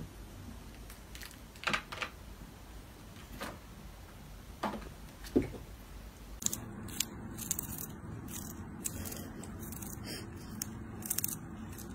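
A few light taps and knocks as a cat moves among small objects on a dressing table. Then, close up, a kitten licking and chewing a treat held to its mouth, heard as a run of small wet clicks and crunches.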